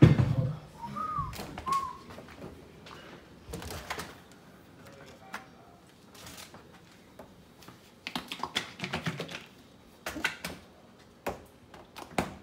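Kitchen handling noises around a refrigerator: a heavy thud at the start, two short squeaks about a second in, then scattered clicks and knocks as the fridge door is opened, jars and bottles are moved about on its shelves, and the door is shut.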